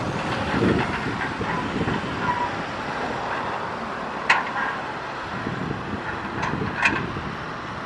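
Kobelco crawler excavator's diesel engine running under load as the boom lifts the bucket, a steady rumble that swells and eases. A sharp knock comes about four seconds in and two more close together near the end.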